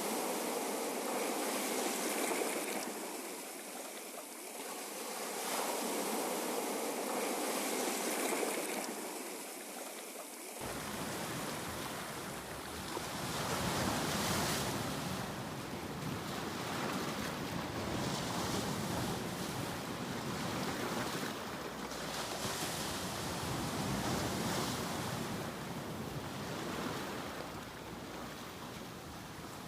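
Ocean surf: waves washing in and receding, swelling and easing every few seconds. About a third of the way in, a deeper low rumble cuts in suddenly beneath the wash.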